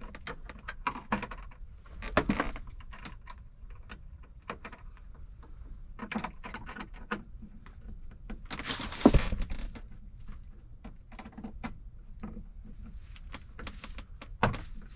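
Hand and tool handling noises while connecting the negative cable of a solar power kit: scattered clicks, small metallic clinks and knocks, with a louder knock and rustle about nine seconds in.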